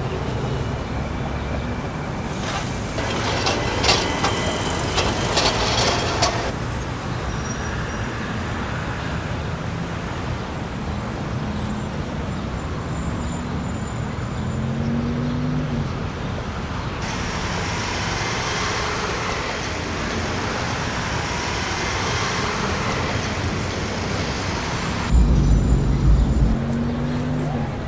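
City street traffic: motor vehicles such as cars and buses running past in a steady wash of noise, with engine pitch rising now and then as vehicles pull away. A heavier low rumble comes in near the end.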